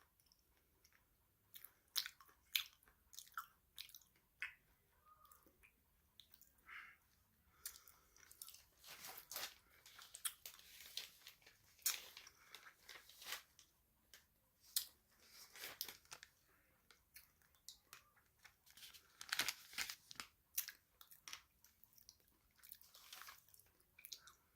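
Close-up crunchy chewing and biting of a crisp snack, irregular sharp crunches coming in clusters with short pauses between.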